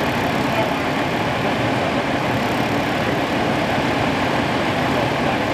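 Fire engine's diesel engine running steadily at close range, a constant unbroken drone.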